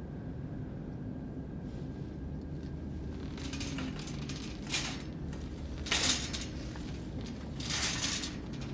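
Metal clattering and clinking in four short bursts, the loudest a little past the middle, over a steady low room hum.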